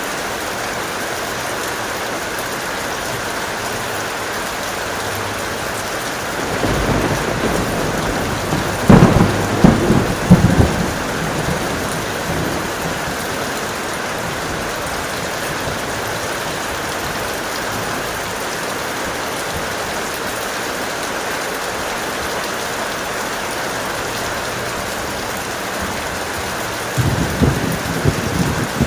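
Heavy rain falling steadily, with a thunderclap about a third of the way in: a low rumble that builds into several loud cracks and dies away over a few seconds. A second, shorter roll of thunder begins near the end.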